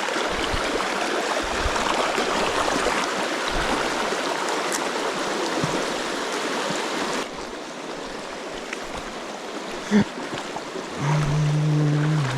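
Small river current rushing over rocks, a steady wash of water that turns quieter about seven seconds in. A single short knock comes near the end, followed by a steady low hum.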